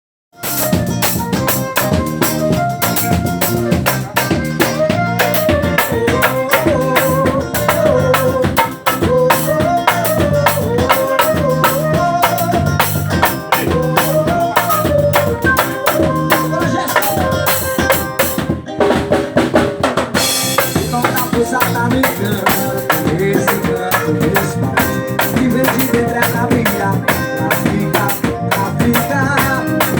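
A band playing carnival music, with a busy drum kit and percussion under a wavering melodic lead. The music drops out briefly just before the twentieth second, then comes back in with a cymbal crash.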